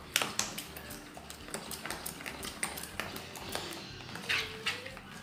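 Plastic spoon stirring a thick gel in a plastic bowl: irregular clicks and taps of the spoon against the bowl, several a second.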